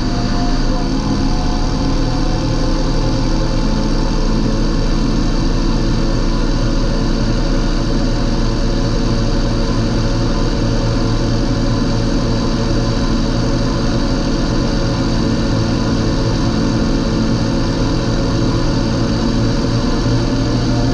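John Deere 8320 tractor's six-cylinder diesel engine running at a steady speed, with a slight dip in pitch in the first few seconds.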